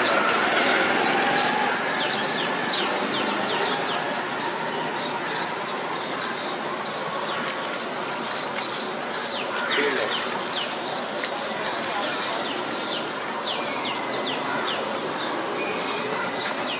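Birds chirping continually in many short, high calls over a steady background noise with faint voices.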